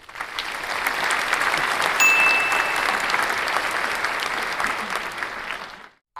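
A crowd applauding, a dense patter of many claps that swells in at the start and stops just before the end. A short, high steady whistle-like tone sounds once, about two seconds in.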